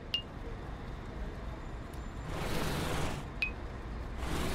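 Quiet cartoon sound effects: two soft whooshes about two seconds apart and two brief high pings, one near the start and one about three and a half seconds in.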